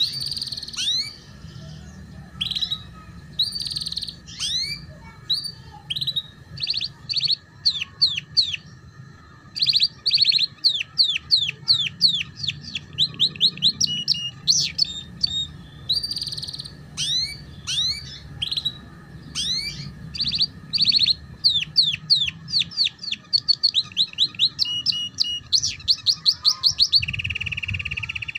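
Domestic canary singing a ngeriwik-style song: runs of fast, sharply falling chirps, one run after another, with a held note near the end.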